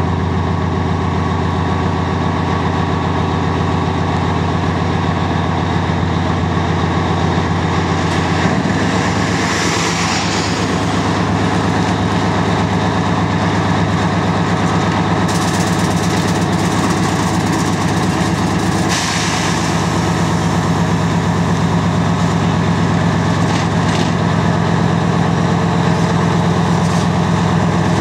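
An Lxd2 narrow-gauge diesel locomotive's engine working hard under load as it struggles on wet rails to pull four empty standard-gauge wagons on transporters. The engine note steps up about a third of the way in, and there are two short hisses, one around the middle and another about two-thirds of the way through.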